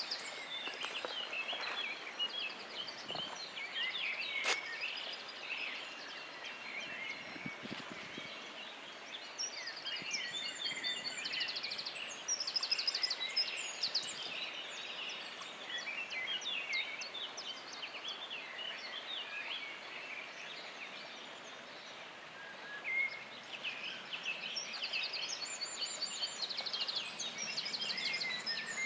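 Several songbirds singing at once in spring forest, an overlapping mix of chirps, whistles and quick rapid-note trills over a steady background hush. A single sharp click about four and a half seconds in.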